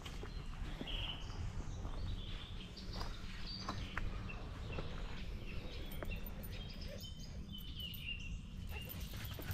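Songbirds chirping and singing in short scattered phrases over a steady low outdoor rush, with a few sharp ticks or snaps around the middle.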